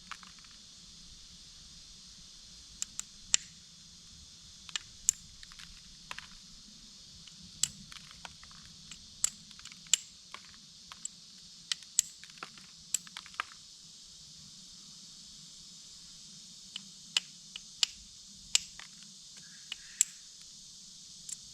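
Green bottle glass being flintknapped: sharp, irregular clicks and snaps as small flakes chip off the bottom of an old glass Coke bottle, with a quieter pause partway through.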